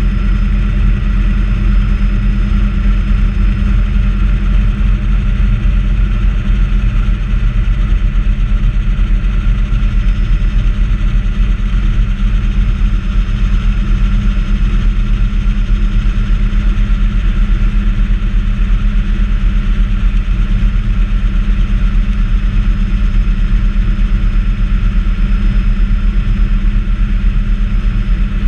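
Bell 206A JetRanger helicopter in flight, heard from inside the cabin: the steady, fast beat of the two-bladed main rotor under a thin, steady high whine from the turbine engine.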